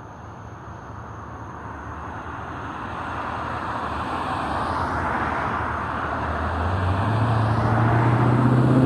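A motor vehicle approaching, its tyre and engine noise growing steadily louder, with the low engine hum coming through clearly near the end.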